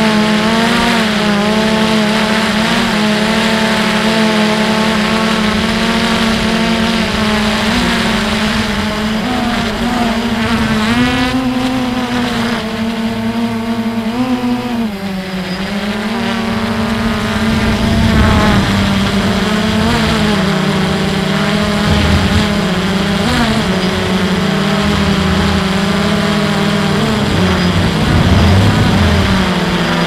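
Camera drone's motors and propellers whirring steadily. The pitch wavers with throttle changes and dips briefly about halfway through. Wind rumbles on the microphone underneath.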